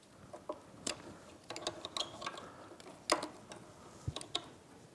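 Plastic wiring connectors of an outboard's regulator rectifier being worked loose and unplugged by hand: a scatter of small clicks and ticks, the sharpest about three seconds in.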